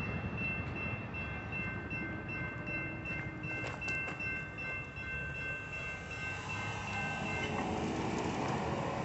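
Railroad crossing bell ringing in a steady repeating clang as the gates rise, stopping about seven and a half seconds in. A low rumble runs underneath.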